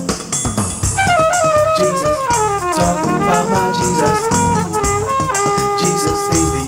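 Instrumental break of an upbeat gospel song: brass playing a line of notes that steps down and then climbs back up, over a steady beat.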